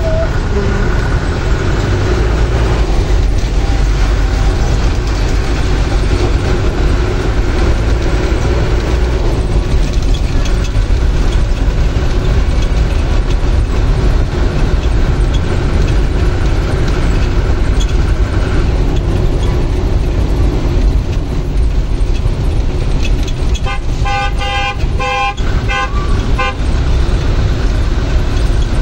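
Steady low rumble of engine and road noise inside a moving bus in city traffic. Near the end a vehicle horn honks several times in quick succession.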